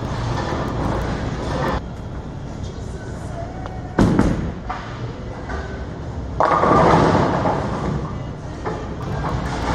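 A 900 Global Honey Badger Revival bowling ball thuds onto the lane as it is released, about four seconds in. About two and a half seconds later it strikes the pins, a loud crash and clatter that dies away over a couple of seconds.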